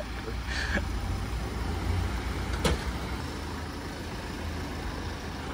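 A motor vehicle's engine running with a steady low rumble, and a single sharp click a little past halfway.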